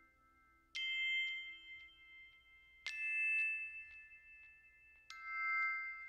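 Background music: three bright, bell-like notes struck about two seconds apart, each ringing on as it fades.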